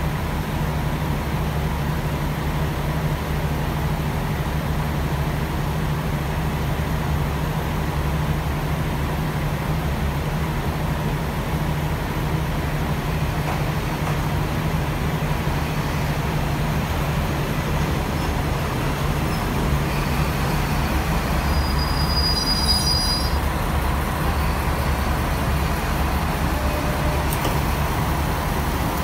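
Diesel railcars at close range: a steady low idling drone, as the Ibusuki no Tamatebako diesel train rolls in alongside. About three-quarters of the way through there is a brief high squeal.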